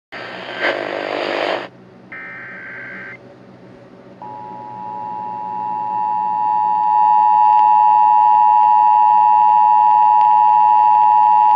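Two bursts of harsh, buzzy digital data noise, the Emergency Alert System header. From about four seconds in comes the EAS two-tone attention signal, a steady dual-tone drone that grows louder over its first few seconds.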